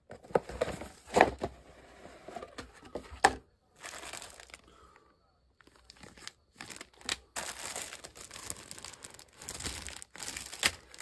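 Clear plastic bags holding model-kit sprues crinkling as they are handled. There are sharp crackles about one and three seconds in, a short lull around halfway, then denser crinkling near the end.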